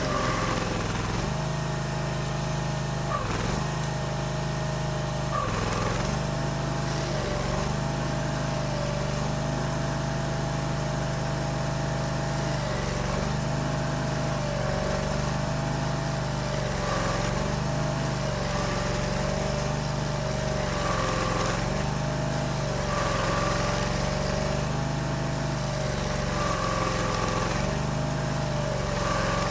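Stump grinder's gas engine running steadily at high speed. Its pitch sags briefly and recovers every couple of seconds as the cutter wheel takes load.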